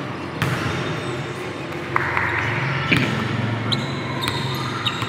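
Basketball bouncing on a court, a few sharp hits, with several short high squeaks of sneakers in the second half over a steady low hum.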